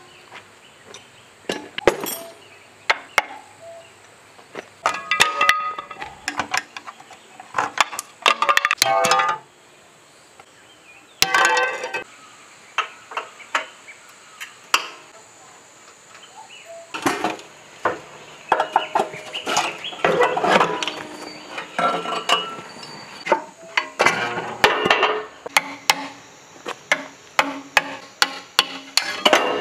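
Hand tools clinking, knocking and scraping on the rusty metal block of a generator set's engine as it is taken apart. There are many short metallic clicks and knocks, some ringing briefly.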